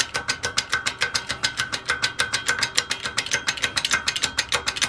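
Hydraulic shop press being worked steadily, with rapid even clicking at about ten clicks a second, as it pushes an old rear wheel bearing out of a motorcycle hub.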